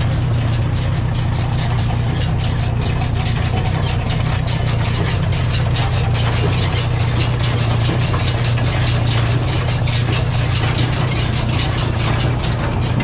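An engine idling steadily, with a fast, even ticking over its low hum.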